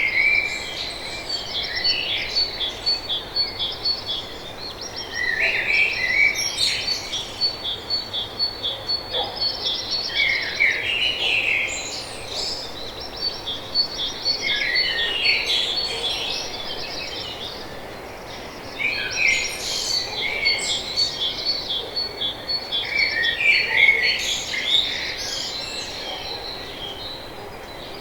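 Songbirds singing in overlapping phrases of chirps and trills, coming in bouts every few seconds, over a steady, fast, high-pitched trill.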